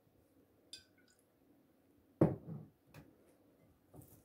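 Kitchen handling sounds: a short high squeak from the plastic lime-juice squeeze bottle, then a dull thud as a bottle is set down on the wooden countertop, followed by a couple of light clicks.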